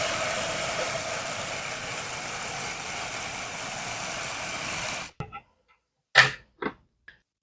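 Water pouring into a cat water fountain's tank, a steady splashing rush that stops suddenly about five seconds in. A few short plastic clunks follow.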